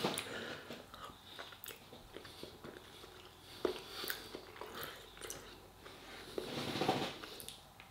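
A person chewing a mouthful of crispy chicken: faint wet mouth sounds with scattered small crunchy clicks.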